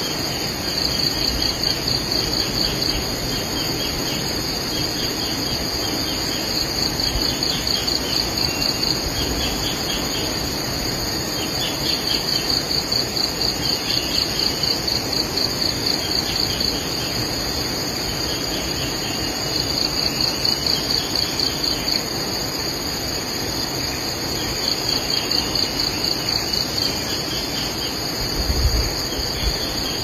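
Insects calling: a high, pulsing trill that swells in bouts of a few seconds, about six times over a steady high drone. There is a brief low bump near the end.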